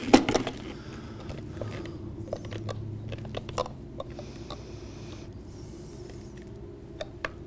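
A plastic food processor bowl clicks sharply as it is unlocked from the base, then a spatula scrapes and taps thick bean dip out of the bowl in small, scattered knocks.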